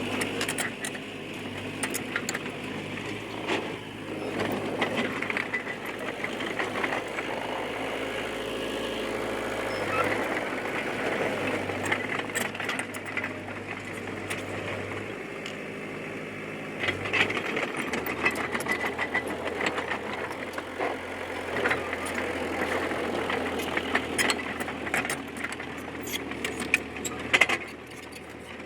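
Bulldozer diesel engine running steadily, its note shifting a few times as the load changes, with scattered metallic clanks and knocks from the machine working.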